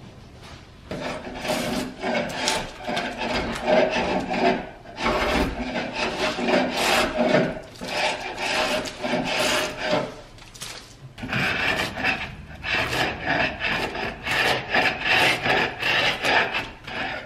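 Sharp chisel scraping old paint off a hardwood door, in runs of quick scratchy strokes broken by short pauses.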